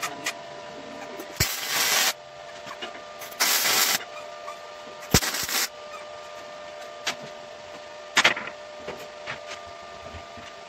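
HTP Pro Pulse 300 MIG welder laying short tack welds on steel: three crackling bursts of about half a second each, a second or two apart, then a shorter burst near the end. A steady hum runs underneath.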